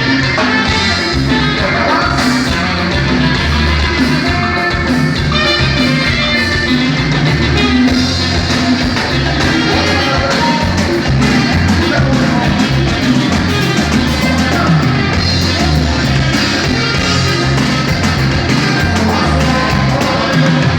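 Norteño band music with singing over a steady bass beat.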